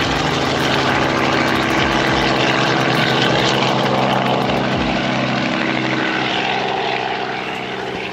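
Helicopter flying off: a steady rotor and turbine drone with rapid blade chop, fading toward the end.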